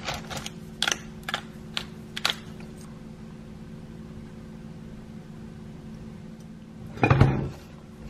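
Kitchen handling sounds: a few sharp clicks and taps in the first couple of seconds over a steady low hum, then a heavier knock about seven seconds in as the cast-iron pot is handled on the glass induction cooktop.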